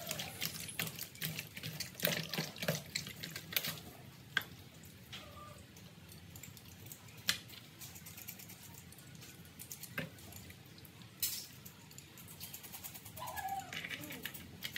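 Water splashing and sloshing in a plastic basin as raw pork belly is rubbed and washed by hand, busiest in the first few seconds. It then settles to quieter handling with a few sharp clicks while the meat is trimmed with a knife.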